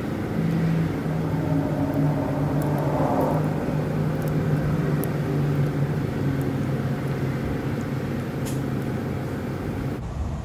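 A steady machine hum with a low, slightly wavering pitch, and a few faint light clicks.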